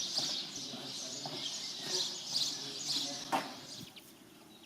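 Small birds chirping, a quick run of short high calls, with one sharp click a little over three seconds in.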